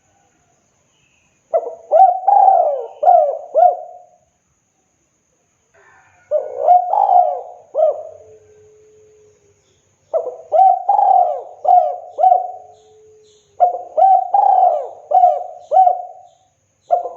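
Spotted dove (tekukur) cooing its song: four phrases of several quick, bending coo notes each, a few seconds apart.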